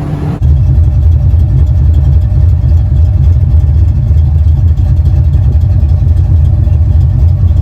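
A Fox-body Mustang GT's built 306 V8, breathing through long-tube headers, an off-road H-pipe and two-chamber mufflers, running with a loud, steady, pulsing low exhaust rumble. The sound cuts in abruptly about half a second in.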